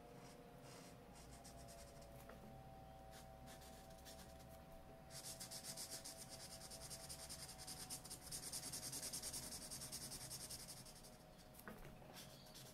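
Marker pen tip scratching on paper in quick back-and-forth strokes as a shape is coloured in. The strokes are faint at first and come louder and faster from about five seconds in, easing off again near the end.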